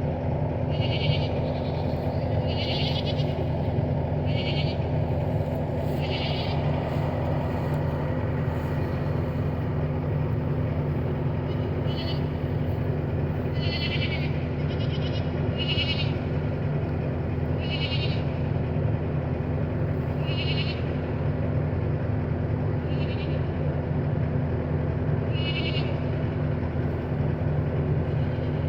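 Goats bleating: short calls every second or two, with a pause of a few seconds in the middle, over a steady low engine hum.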